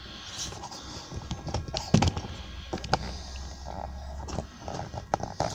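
Scattered light knocks and taps as timber and tools are handled on a workbench, with one sharper knock about two seconds in and a few quick clicks near the end.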